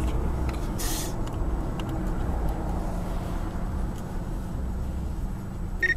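Steady engine and road noise inside a moving car's cabin, as picked up by a dashcam, with a brief hiss about a second in.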